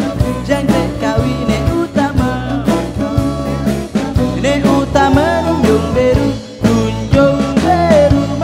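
Band music from a fusion rock band playing, with a steady drum beat under a bending melodic line.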